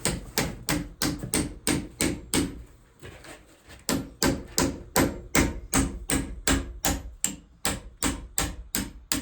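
Steady hammer blows on a metal part of an NV4500 manual transmission, about three a second, driving it off so the rear bearing can be reached. The blows pause briefly about two and a half seconds in, then carry on.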